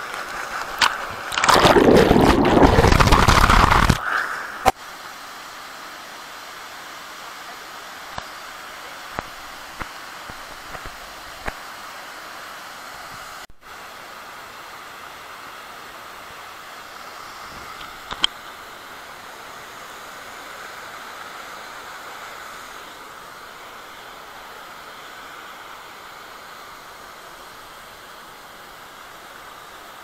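Waterfall rushing steadily. For a few seconds near the start, falling water pours right onto the camera and it splashes loudly.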